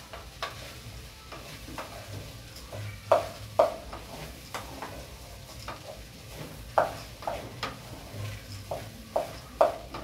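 A spoon stirring and scraping through rice and diced vegetables sautéing in a metal pot, with irregular scrapes and knocks, a few of them louder, over a faint sizzle of frying. The rice is being fried in the fat before the water goes in.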